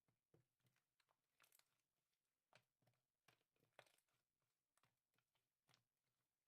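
Faint, irregular clicks and crackles of slime being squeezed and poked by hand, about a dozen in the space of a few seconds.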